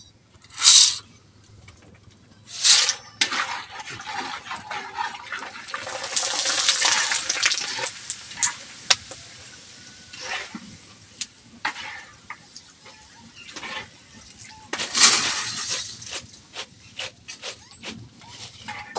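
Dry macaroni deep-frying in hot oil in a wok, sizzling with several sudden loud surges and many short crackling pops.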